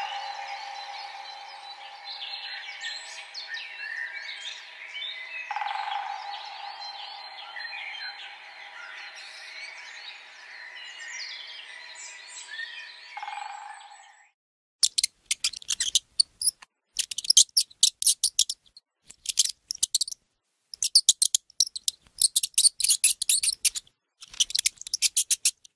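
Nature recording of a dense chorus of animal chirps and calls over steady droning tones, which stops about fourteen seconds in. After a short gap come bursts of rapid, very high-pitched chittering.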